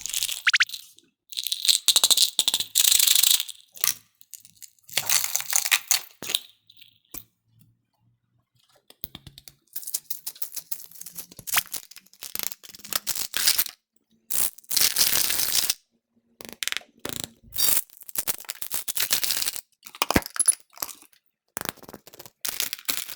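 Small hard candies rattling and clattering against each other and their container as they are poured and mixed, in a string of separate bursts a second or two long with short gaps between.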